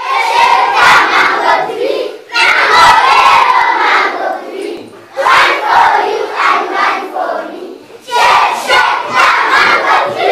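A large group of young children shouting and chanting together in four loud phrases, each two to three seconds long with short pauses between.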